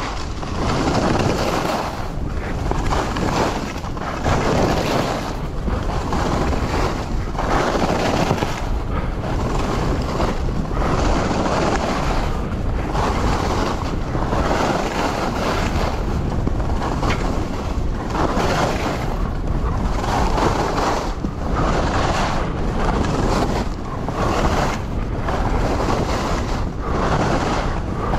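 Wind rushing over the camera's microphone while skiing, mixed with the hiss of skis running through snow. The noise rises and falls in regular swells about every second or so.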